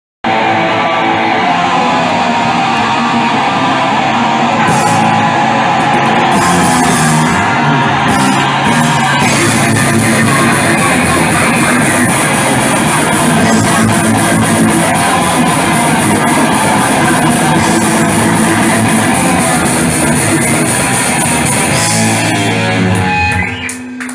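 A band playing loud live music on electric guitar and drums. It starts suddenly just after the beginning, runs at a steady full level, and stops about a second before the end.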